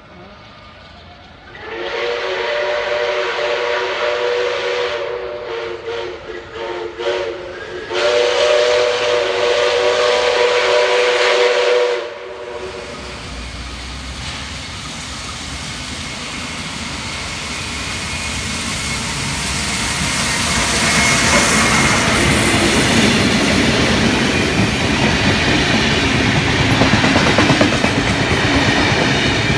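Steam locomotive whistle: one long blast, several short blasts, then another long blast, each a chord of several tones. Then the train passes, the locomotive and its heritage carriages running over the track and getting louder.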